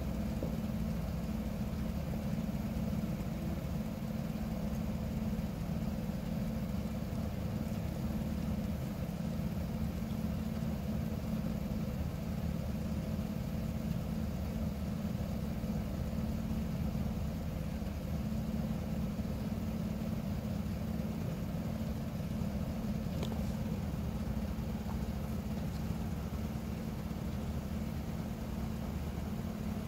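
Vehicle engine idling steadily, a low even rumble.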